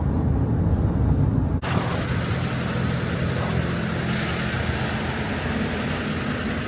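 Low, muffled rumble inside a vehicle cabin, then, after an abrupt cut about one and a half seconds in, steady outdoor traffic noise: a wide hiss with a low engine hum from heavy trucks.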